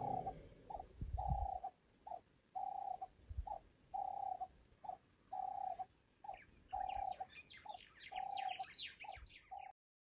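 A dove cooing a steady repeated two-note call, a short note then a longer one, about once every second and a half. The last of a sleeping elephant's low snoring rumble fades in the first two seconds, and small birds chirp rapidly from about seven seconds in. The sound cuts off just before the end.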